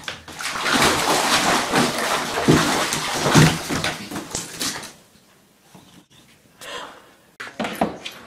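Water splashing in a bathtub as a cat thrashes while being lowered in. The splashing is loud for about five seconds and then dies down, with a few short knocks near the end.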